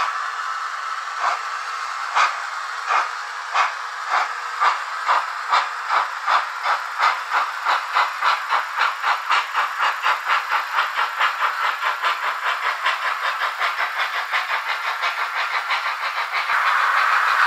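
Sound decoder of a model ÖBB BR 52 steam locomotive playing steam chuffs as it pulls away, the beats starting at about one a second and quickening steadily to about four a second over a steady hiss. Near the end a steadier, louder rushing noise takes over.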